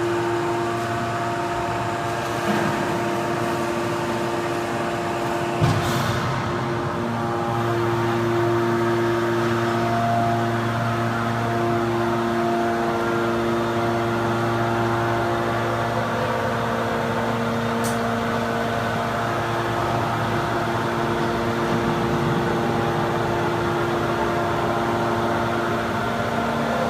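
Automatic hydraulic metal baler running: a steady machine hum from its electric motor and hydraulic pump, holding several even tones, with a clunk about six seconds in.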